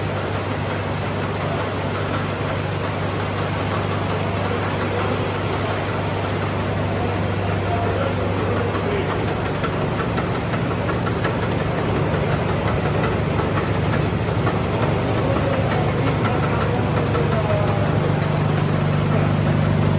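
A steady low mechanical hum of an engine or motor-driven machine running, growing slowly louder.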